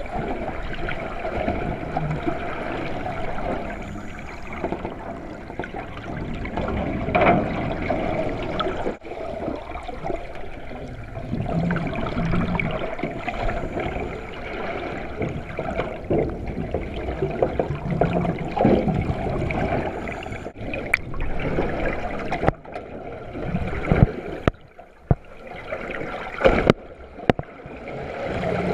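Water sloshing and gurgling around an underwater camera, a steady churning noise, with a few sharp knocks near the end.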